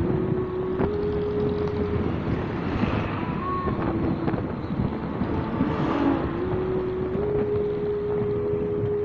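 Motorcycle engine running on the move, its steady pitch stepping up and down a few times with the throttle, over a rush of wind and road noise.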